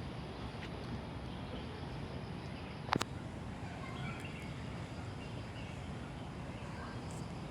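Outdoor ambience: steady low background noise with a few faint bird chirps, and one sharp click about three seconds in.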